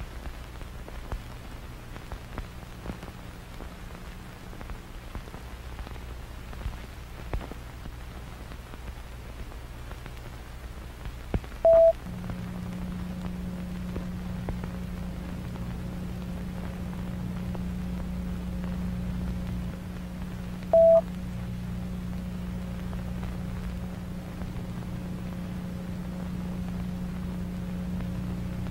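Worn analog tape audio: a low hum with scattered crackles. About twelve seconds in, a steadier low drone starts, along with the first of two short, loud beeps; the second comes about nine seconds later.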